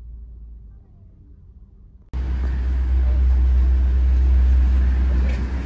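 Quiet low hum inside a car, then about two seconds in, loud steady highway traffic noise with a deep rumble.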